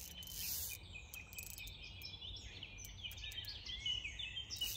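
Birds singing in the background: many short chirps and warbles over a low steady outdoor rumble, with a few faint clicks.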